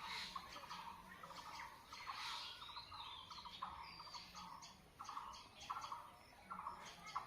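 Several birds calling together: a run of short, rapidly pulsed calls repeating over and over, with higher chirps and quick sweeping notes mixed in.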